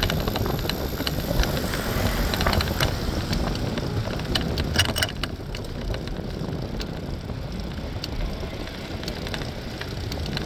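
Riding an Oslo Bysykkel city bike: wind buffeting the microphone over a steady rush of rolling noise, with a few sharp rattling clicks about five seconds in.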